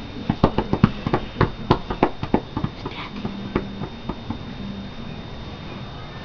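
A child's hands slapping in a quick run, about five slaps a second, loudest for the first two and a half seconds and then fading to a few softer ones.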